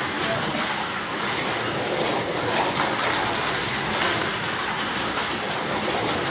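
Artin 1/43-scale slot cars racing laps on a four-lane plastic track: a steady whir of their small electric motors and of the cars running in the slots.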